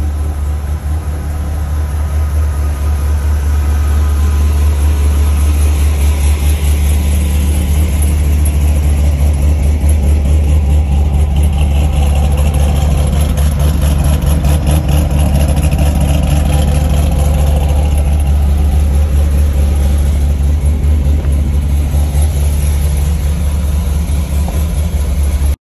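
Whipple-supercharged C5 Corvette Z06's LS6 V8 idling steadily.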